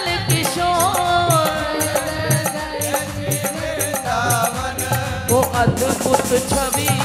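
Hindu devotional kirtan: a woman singing a chant of divine names over music, with steady, evenly repeating jingling percussion.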